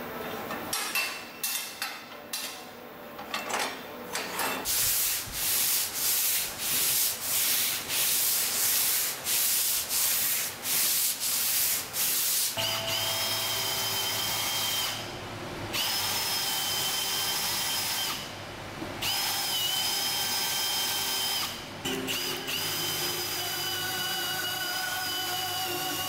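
A cordless drill boring through a metal strip into plywood: a steady high whine in runs of a few seconds, stopping and starting again three times. Before it, about halfway in, a run of rhythmic scraping strokes, a little under two a second.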